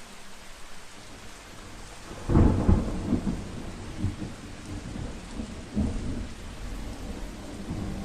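Steady rain falling, with a sudden loud clap of thunder a little over two seconds in that rolls on as low rumbling, followed by a couple of weaker rumbles.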